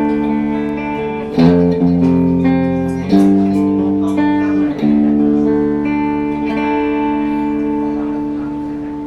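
PRS 408 electric guitar playing sustained chords, each struck and left to ring. A new chord comes in about every second and a half, and the last one rings on and slowly fades.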